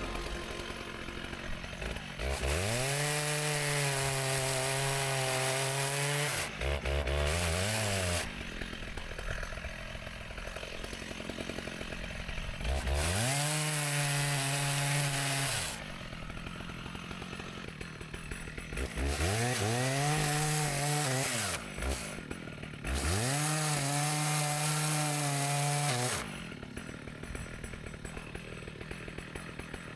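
Two-stroke chainsaw revved to full throttle in four bursts of a few seconds each, climbing quickly to a high steady pitch and dropping back to a quieter idle between bursts.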